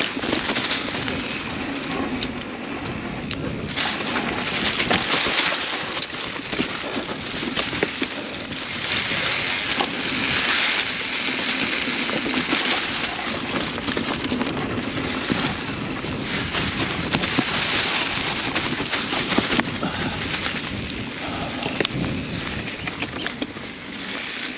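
Mountain bike rolling along a dirt trail: tyre noise and wind rush that swell and ease with speed, with scattered small knocks and rattles from the bike.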